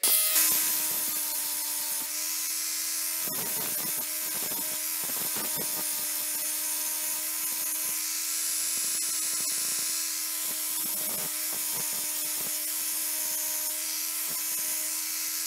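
Power tool running a polishing buff against a steel knife blade: a steady motor whine under a loud, hissing rub of the buff on the metal. It starts abruptly and cuts off suddenly near the end.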